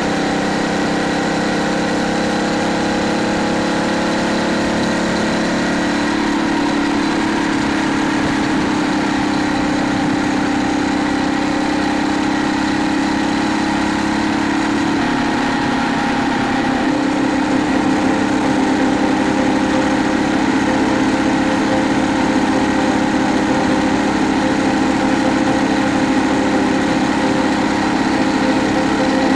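Phatmoto Rover gas bike's small four-stroke engine running steadily while riding. Its pitch shifts about six seconds in and again around fifteen seconds in, and it runs a little louder after that.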